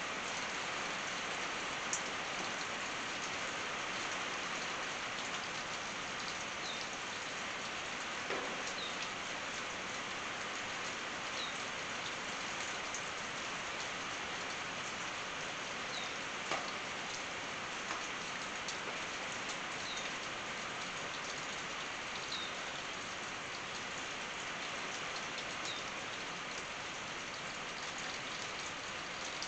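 Steady rain on a tin roof: a dense, even patter with an occasional louder drop hit. A bird gives a faint short chirp every few seconds behind it.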